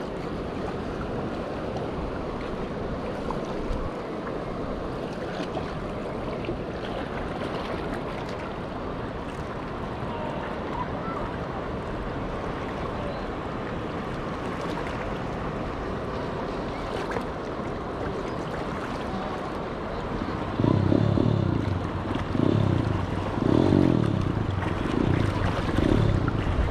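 Sea washing against shoreline rocks, with wind on the microphone: a steady rushing noise. About three-quarters of the way through, a louder, low pitched sound comes in uneven spurts over it.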